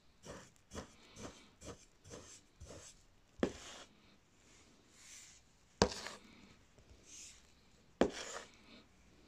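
A knife cutting through kinetic sand: a run of soft, gritty crunching strokes about twice a second, then three sharp knocks spaced a couple of seconds apart, each trailed by a short crumbling rustle.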